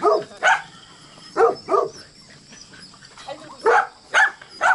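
A dog barking: seven short barks in twos and threes.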